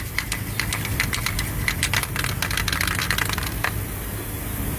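Light, irregular clicks and rattles as an aerosol can of copper gasket spray is handled, ending in a sharper knock a little after three seconds in as the can is set down on the engine block. A steady low hum runs underneath.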